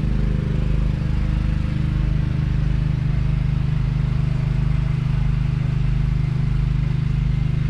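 John Deere 5100M's 4.5-litre four-cylinder diesel engine idling steadily, an even low drone.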